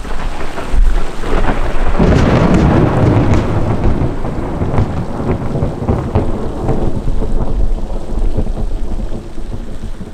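Thunderstorm: steady heavy rain, with a long rumble of thunder that swells about two seconds in and slowly dies away.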